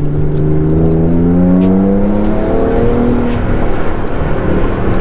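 Alfa Romeo GTV 3.0 V6 engine accelerating under way, its note climbing over the first two seconds or so. The pitch changes around the middle and the engine then runs steadier.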